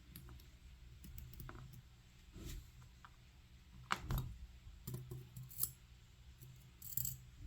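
Scattered small clicks and taps of metal lock parts and tools being handled while an Assa 700 pin tumbler cylinder is taken apart pin by pin, the sharpest click about four seconds in.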